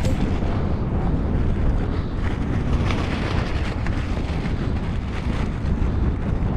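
Wind blowing hard across the microphone, a steady low rumble.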